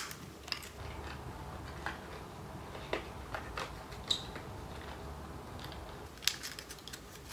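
Scattered small clicks and taps of cosmetic packaging and products being handled, with a few more close together near the end.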